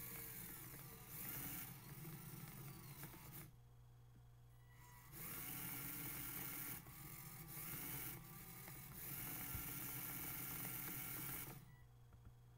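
Makeblock robot's small DC gear motors whirring under phone joystick control, their pitch sliding up and down as the speed changes. They stop twice for a second or so, a few seconds in and near the end.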